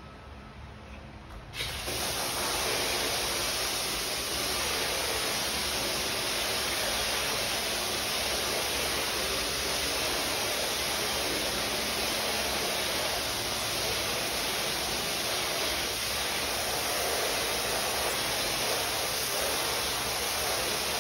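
Water jetting from a hose spray wand onto an area rug and the floor, flooding the rug during its wash. It is a steady hiss that starts suddenly about a second and a half in.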